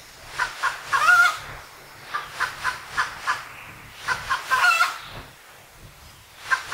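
Hens clucking: runs of short, quick clucks, each building to a longer drawn-out cackle, about a second in and again past the middle.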